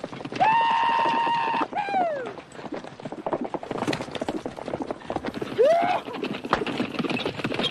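A horse galloping, its hooves drumming fast and steadily. About half a second in, a long held call rings out for over a second and falls away at its end, and a shorter rising-and-falling call comes near six seconds.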